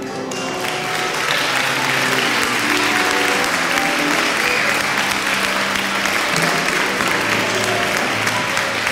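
Crowd applauding over background music; the clapping swells in during the first second or so, then holds steady.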